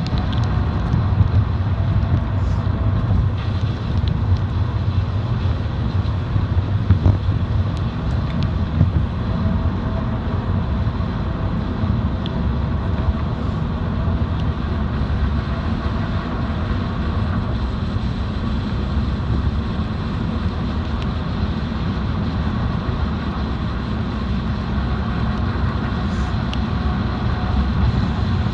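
Steady low rumble of a car driving: continuous road and engine noise, even throughout.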